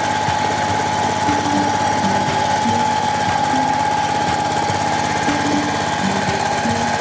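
Walk-behind two-wheel tractor (power tiller) with a single-cylinder diesel engine running steadily under load, chugging with a fast knock as its rotary tiller works through paddy mud. A steady high whine runs over the engine sound.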